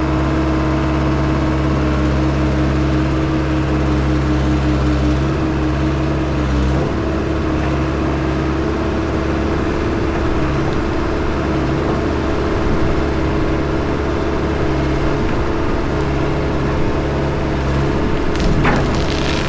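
Engine running steadily throughout, its tone shifting slightly about five to seven seconds in.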